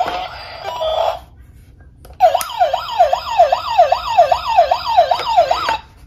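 Electronic siren of a battery-powered toy police car, a fast warbling wail that sweeps up and down about three times a second. It starts about two seconds in and cuts off just before the end.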